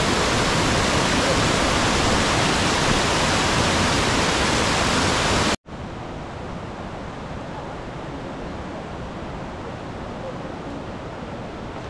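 Water pouring over a concrete weir spillway onto stream rocks, a loud steady rush. It cuts off sharply about five and a half seconds in and gives way to a much quieter, even outdoor background noise.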